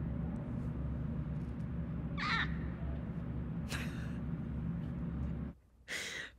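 Baby goat bleating: two short, high-pitched bleats about a second and a half apart, over a steady low hum that cuts off near the end.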